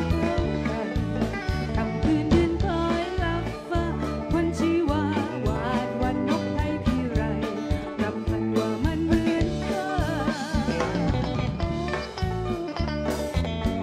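Live bluegrass band playing with a steady beat: a fiddle leads over strummed strings, bass and drums, and a woman sings into a microphone in the middle.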